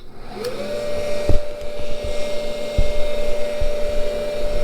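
Cincinnati #2 tool and cutter grinder's motor switched on, whirring up to speed within about half a second and then running at a steady pitch, with a few light knocks.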